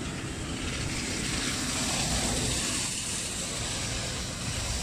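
Gusty wind blowing across the microphone: a steady rushing hiss with irregular low buffeting.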